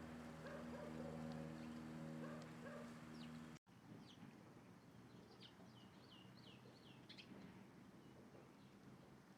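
Sustained background music cuts off abruptly a little over a third of the way in. Faint wild bird calls follow: short high chirps, with a quick run of about five similar notes in the middle.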